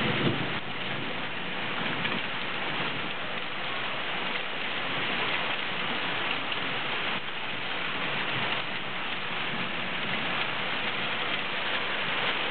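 Heavy downpour mixed with fine hail, falling as a steady hiss on grass and parked cars.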